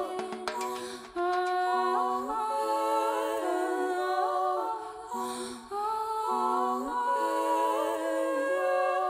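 A woman humming wordless held notes in a slow melody, with several vocal lines sounding together in harmony. The notes step from pitch to pitch, with short breaks about a second in and again midway.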